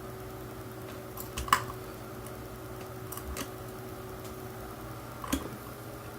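A few light clicks and taps of a small screwdriver and the plastic shell of a toy quadcopter being worked on by hand: the sharpest about a second and a half in, fainter ones around three seconds, and one more near the end, over a steady low hum.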